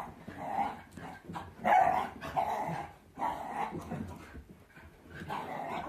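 Two border terriers play-fighting, barking and yapping at each other in repeated irregular bursts, the loudest about two seconds in.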